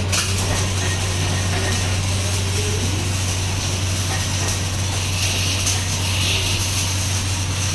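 Steady workshop machinery noise: a constant low electrical hum under an even hiss, with no distinct knocks or strikes.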